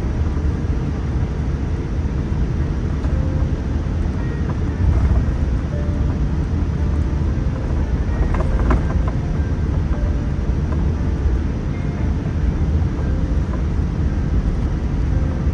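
Steady low rumble of a Boeing 787-9 airliner heard from inside the cabin, with a brief rattle about eight and a half seconds in.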